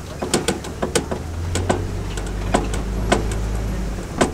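Safari ride truck running with a steady low engine drone, its body giving off frequent irregular rattles and knocks, a sharper knock near the end.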